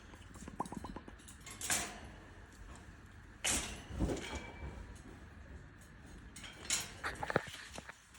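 Scattered knocks, clicks and rattles on an African grey parrot's cage as it is handled, with a quick rattling run of clicks just before a second in and a cluster of sharp knocks near the end.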